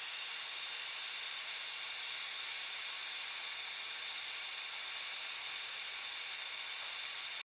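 Steady hiss of a butane soldering iron's burner, which stops abruptly near the end.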